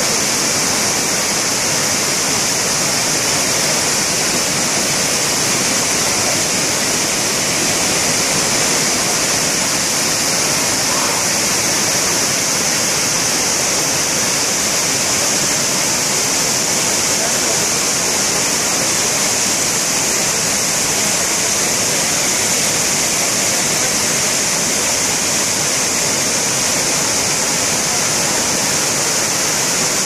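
Iguazu Falls' waterfalls pouring, a loud, steady rush of heavy falling water that holds even throughout, heard close from the foot of the falls.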